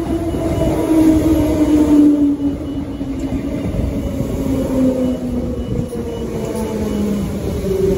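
Transperth A-series electric train passing close by as it runs into the station: its motor whine is made of several tones that slide slowly and steadily down in pitch as the train slows, over the rumble of wheels on rail.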